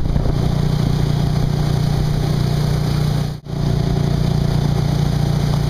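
Motorboat engine droning steadily, heard from aboard the towing boat, with a rushing hiss over it. The sound drops out briefly about three and a half seconds in, then resumes.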